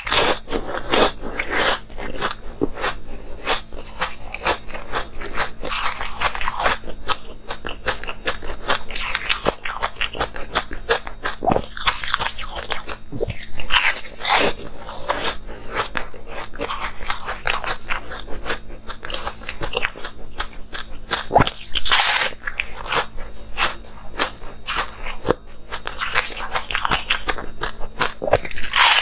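Close-miked crunching and chewing of frozen ice pucks: one bite after another cracks the ice, then teeth grind the fragments in a dense crackle.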